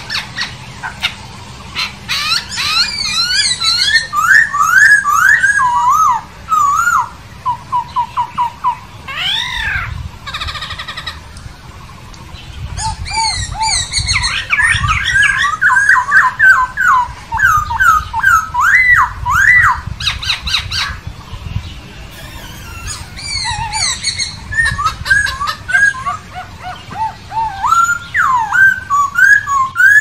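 Black-throated laughingthrush singing loud, varied whistled phrases of quick rising and falling notes, in bursts with short pauses between them. One phrase is a run of even repeated notes.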